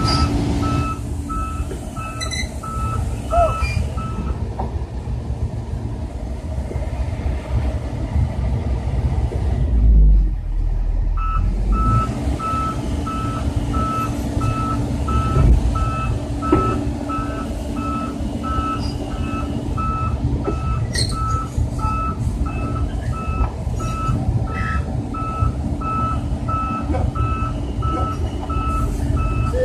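Volvo EC210 excavator's travel alarm beeping repeatedly over its running diesel engine, heard from inside the cab. The beeping stops a few seconds in and starts again about halfway through.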